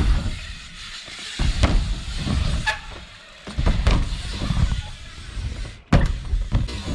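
BMX bikes riding a backyard ramp park: tyres rumbling over the ramp surfaces, with several sharp knocks from wheels landing and hitting the transitions, the loudest about six seconds in.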